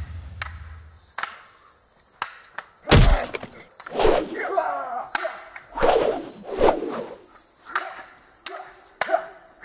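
Wooden fighting staffs striking each other in a staged fight: a string of sharp whacks, roughly one a second, the loudest about three seconds in.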